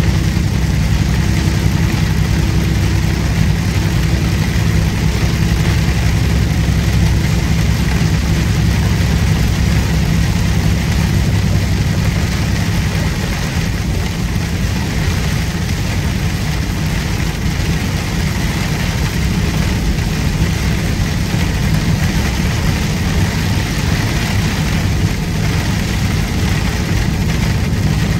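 Truck's diesel engine running steadily while driving on the highway, heard from inside the cab as a low, even drone with a steady hiss of road noise over it.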